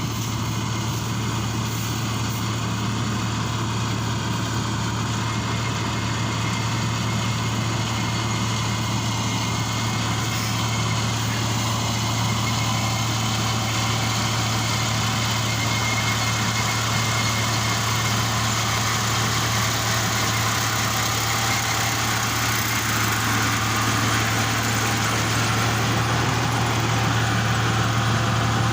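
Kubota rice combine harvester's diesel engine running steadily, a constant low drone with mechanical noise over it, growing a little louder near the end.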